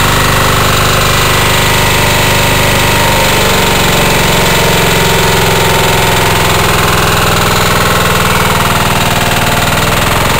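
Karcher HDS 1000 DE pressure washer's 13 hp diesel engine running steadily and loudly, with a fast, even firing beat, while its pump builds no pressure at the gauge.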